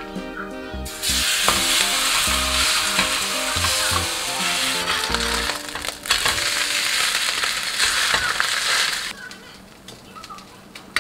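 Batter-dipped napa cabbage leaves (baechu-jeon) frying in oil in a stainless steel pan: a loud, steady sizzle that starts about a second in, breaks off briefly midway and stops shortly before the end.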